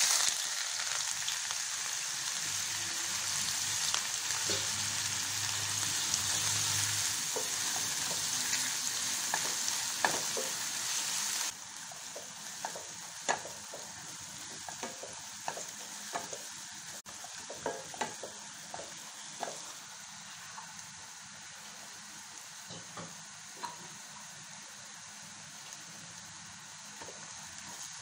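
Sliced onions sizzling in hot oil in a nonstick pan as they go in, stirred with a spatula that clicks and scrapes against the pan. The sizzle is loud at first, drops suddenly about eleven seconds in, then carries on quieter under the spatula's clicks.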